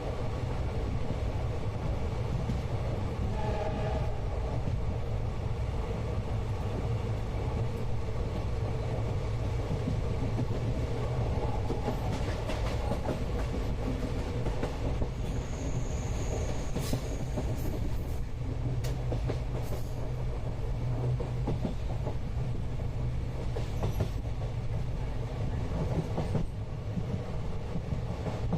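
Inside a moving passenger train carriage: the steady low rumble of the coach running on the rails, with a run of sharp clicks and knocks from the wheels about halfway through and a brief high squeal among them.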